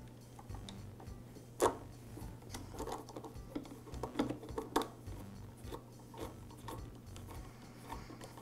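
Screwdriver and plastic recoil starter housing clicking and tapping as the starter is fitted and screwed onto a backpack blower's engine: scattered light clicks, the sharpest about a second and a half in, a cluster of them near the middle.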